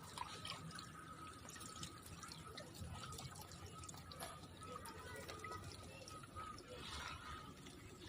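Faint water dripping and trickling, with many small scattered drips. A faint steady high tone runs underneath.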